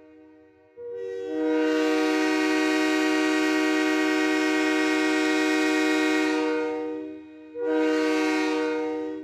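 Train air horn sounding a multi-note chord: one long blast of about six seconds, then a second, shorter blast starting near the end. Each blast swells in and fades away, with no break in pitch.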